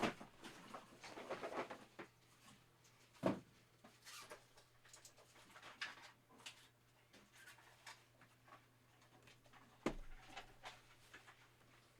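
Trading cards and their packaging being handled: faint rustling and small ticks, with a few sharper taps or knocks, one about three seconds in and one near the end.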